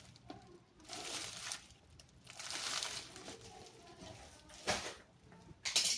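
Packaging being handled during an unboxing: bursts of rustling and crinkling, with a sharper crackle a little before five seconds and another near the end.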